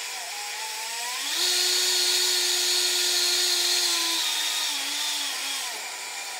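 Electric countertop blender running with a jug of batter. The motor whine climbs to a higher, louder speed about a second and a half in, holds steady, then steps down to a lower speed over the last two seconds.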